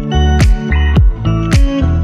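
Background music with a steady beat, a little under two beats a second, over sustained chords.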